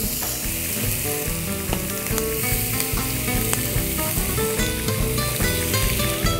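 Calamari pieces sizzling as they flash-fry in hot oil in a frying pan, over background music of plucked notes.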